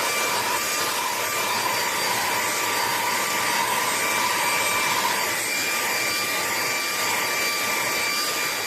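Lubluelu 25000Pa cordless stick vacuum running steadily: a constant rush of air with a high motor whine held over it.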